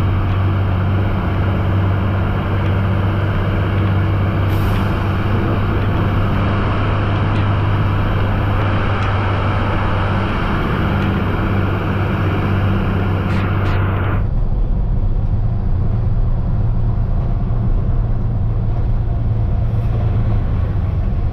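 Heavy truck's diesel engine running steadily, heard from inside the cab, under a loud hiss of rain and wet-road tyre noise. The hiss cuts off suddenly about two-thirds of the way through, leaving the engine's low drone.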